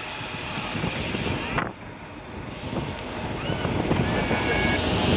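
Wind buffeting the microphone on the open deck of a heritage tram running along the track, over the rumble of the tram's wheels on the rails. The wind noise drops away briefly about a second and a half in.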